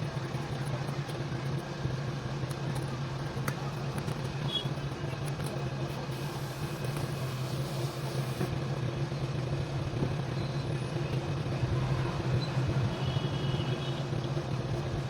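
Steady low motor hum over even background noise, much like a running engine or nearby road traffic.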